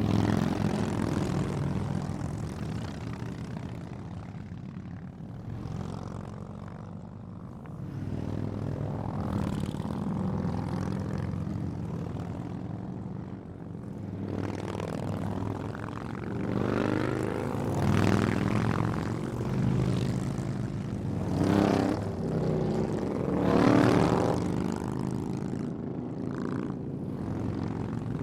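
A group of Harley-Davidson V-twin motorcycles passing by fast, one after another, the engine sound swelling and fading with each pass. The loudest passes come in the second half.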